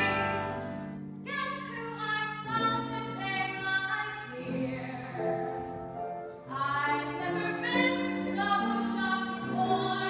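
A woman's alto voice singing sustained notes over accompaniment. About a second in, one held note dies away and a different song starts.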